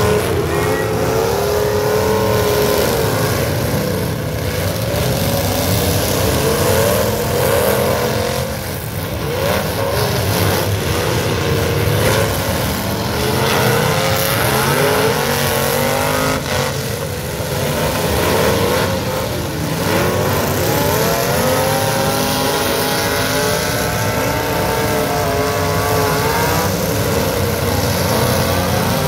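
Several full-size pickup truck engines revving in a demolition derby. Their pitch rises and falls as the trucks accelerate, brake and ram one another, with a steady low rumble underneath.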